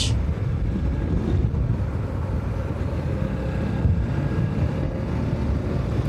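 Motorcycle riding along a road: a steady engine and wind-and-road rumble on the rider's microphone.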